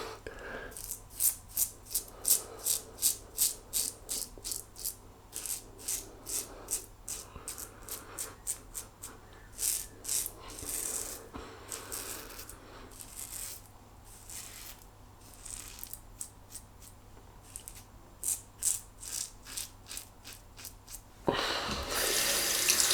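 Strokes of a Simbatec quad edge razor with two blades cutting stubble on the face: a long series of short, crisp scrapes, about two a second at first, then more spaced out. Near the end a tap starts running.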